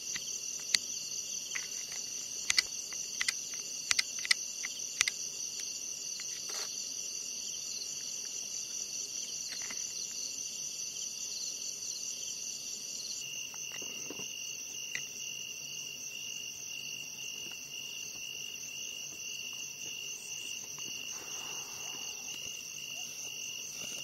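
Night chorus of crickets and other insects: several layers of dense, steady, high-pitched trilling that change abruptly to a different mix about halfway through. A scatter of sharp clicks in the first few seconds.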